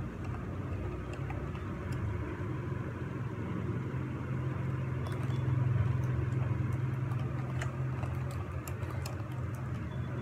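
A low, steady motor hum that swells to its loudest around the middle and then eases off, with a few faint light clicks scattered through it.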